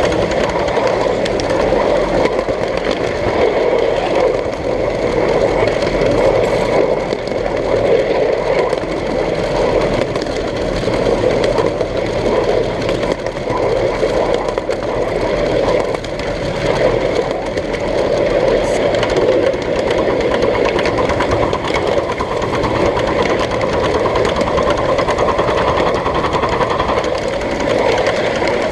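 A 1/8-scale ride-on miniature train running with a steady mechanical clatter.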